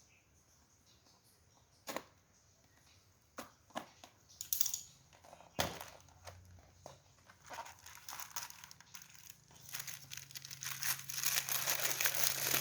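Packaging being torn open and crinkled by hand. There are a few sharp clicks and rustles at first, then steady crinkling and tearing over the last few seconds.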